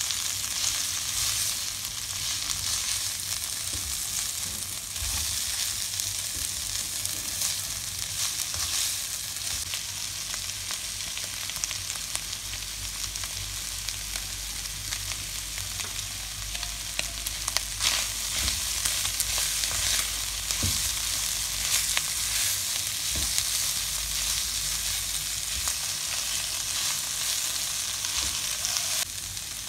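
Shredded chicken frying in oil in a nonstick wok, a steady sizzle, while a plastic spatula stirs and scrapes it with scattered small clicks against the pan. Chopped carrots join the chicken partway through, and the sizzle carries on.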